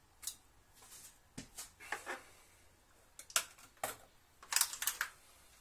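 Household kitchen scissors snipping a boiled sausage into pieces, with metal kitchen tongs clicking, as a string of sharp snips and clicks; the loudest cluster comes near the end.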